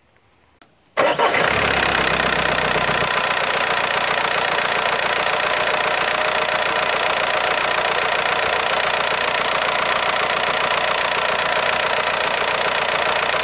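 1.9 TDI diesel engine starting about a second in and settling into a steady idle, its first start after a fuel filter replacement and bleeding of the fuel system.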